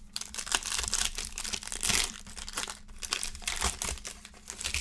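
Foil wrapper of a football trading-card pack being torn open and crinkled in the hands: a dense run of crackling, loudest about two seconds in.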